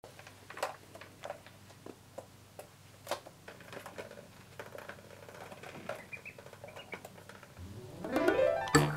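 Faint scattered light taps and patters of ducklings and kittens moving about a plastic ball-track toy on a hard floor. Near the end a rising sweep leads into music.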